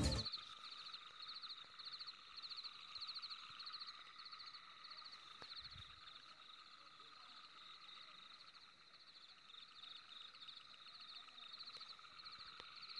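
Faint chorus of calling animals: short high trills repeating about twice a second, thinning out midway and picking up again near the end, over a steady background of more distant callers.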